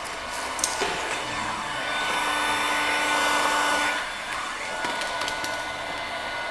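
Electric heat gun blowing steadily on vinyl wrap film, louder for about two seconds in the middle. A few light clicks and taps from handling the film.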